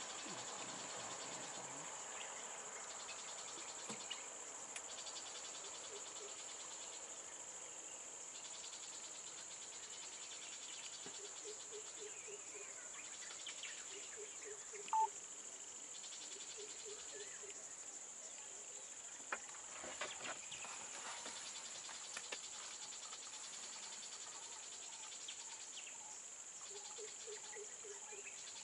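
Steady, high-pitched drone of insects such as crickets in forest, with faint groups of quick low pulses now and then and one brief sharp chirp about halfway through.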